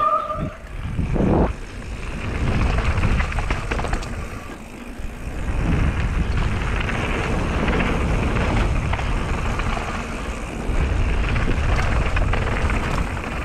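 Mountain bike descending a gravel trail: wind buffeting the camera microphone over the crunch and rattle of the tyres and bike on loose gravel, rising and falling in strength.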